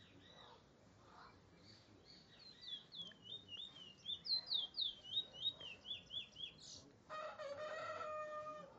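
Trinidad bullfinch singing: a fast run of about fifteen sharp, high, down-slurred notes, after a few faint notes. Near the end a steady, lower held tone with overtones sounds for about a second and a half.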